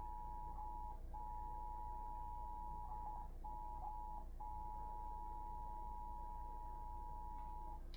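Emergency Alert System attention signal: the two-tone alert (853 and 960 Hz sounded together) held steadily for nearly eight seconds over a low hum, with short dropouts about a second in and twice around the middle. It signals that an emergency alert announcement is about to follow.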